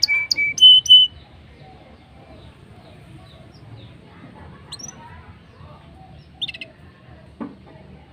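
Blackthroat (black-throated canary) singing: a few loud, clear whistled notes at a steady pitch in the first second, stepping up to a higher note, then only faint scattered chirps and one short call about six and a half seconds in.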